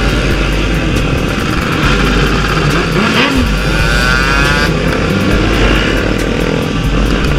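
KTM Super Duke 1290's V-twin engine running as the motorcycle is ridden on the road, with the pitch briefly rising and falling about three to four seconds in.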